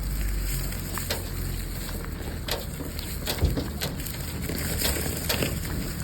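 Wind rumbling on the microphone, with irregular sharp crackles and crunches about once a second, the strongest a little past the middle.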